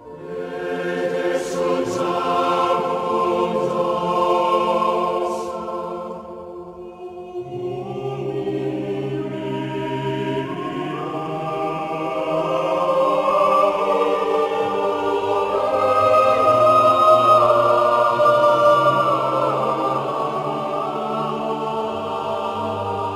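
Background choral music: voices holding long, slowly changing chords, easing off briefly about six seconds in before a new phrase swells up.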